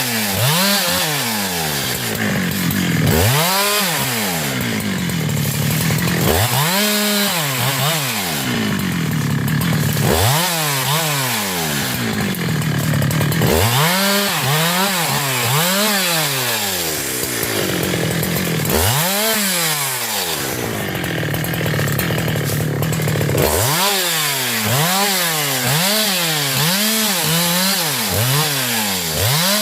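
Husqvarna 372 two-stroke chainsaw engine being revved up and back down over and over, the throttle squeezed and released in bursts, several in quick succession near the middle and near the end.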